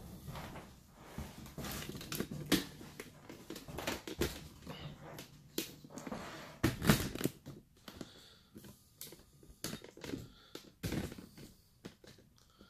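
Irregular knocks, clicks and rustles of movement and handling at close range, over a faint low hum.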